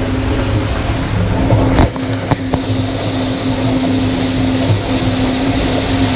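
Gleaner combine running while harvesting corn, heard from inside the cab: a steady drone of the engine and threshing machinery. A few sharp knocks come about two seconds in.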